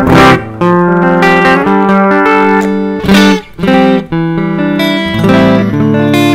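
Yamaha Pacifica 212 electric guitar played clean through a Yamaha THR10 amp on its acoustic-guitar setting: strummed chords at the start and about three seconds in, with picked notes and chord fragments between.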